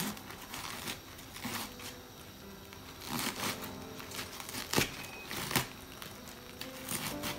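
Kitchen knife cutting into a raw head of white cabbage around its core: a crisp crunch of the leaves every second or so, with soft background music underneath.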